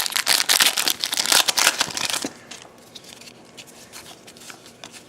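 Foil trading-card pack wrapper crinkling and tearing as a pack is opened, stopping suddenly about two seconds in. Faint clicks of cards being handled follow.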